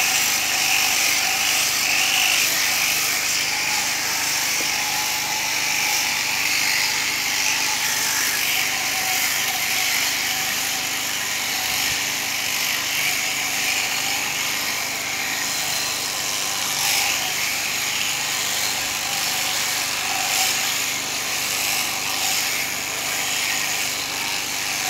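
Electric sheep-shearing machine running steadily as its handpiece cuts through a sheep's fleece.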